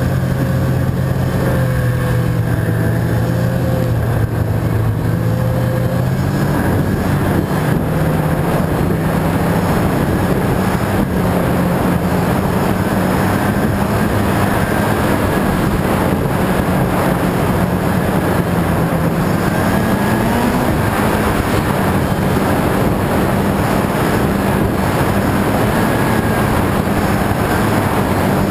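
Snowmobile engine running steadily under way, its pitch stepping up about six seconds in and rising briefly again near twenty seconds, over a constant rush of noise.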